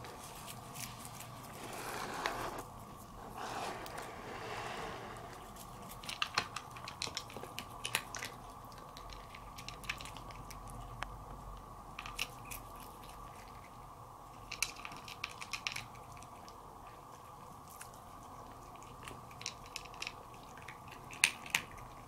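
Siamese cat eating dry kibble from a plate: crunching and chewing, heard as irregular clusters of sharp little clicks.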